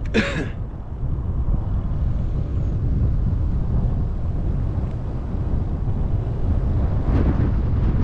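Wind buffeting the microphone of a moving bicycle-mounted camera: a steady low rumble. A brief high squeak sounds right at the start, and the noise swells briefly about seven seconds in.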